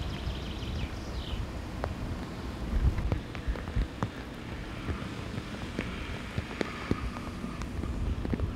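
Rain falling, with scattered drops clicking sharply, over wind rumbling on the microphone.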